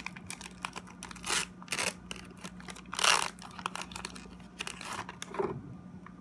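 Foil Pokemon booster pack wrapper crinkling and tearing as it is worked open by hand, in a run of sharp rustles that is loudest about three seconds in and stops shortly before the end. A faint steady hum runs underneath.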